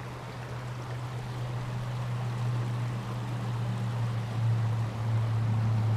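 Steady rushing of stream water, an even hiss over a continuous low rumble, growing a little louder toward the end.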